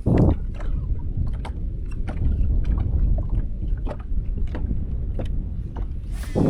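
Wind rumbling on the microphone over the steady wash of water around a small fishing boat, with scattered light clicks and a dull thump at the start and another near the end.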